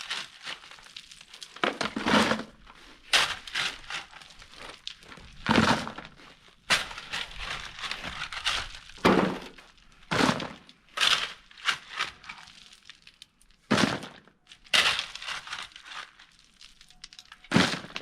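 Crushed-stone ballast crunching and rattling in about a dozen irregular bursts as it is worked by hand, with short quiet gaps between.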